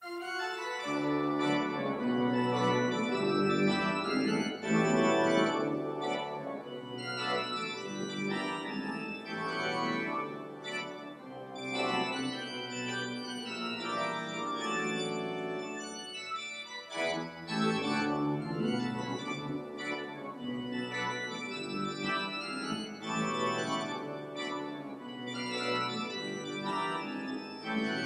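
Organ playing a slow piece in full, sustained chords, with a brief break in the phrasing about 17 seconds in.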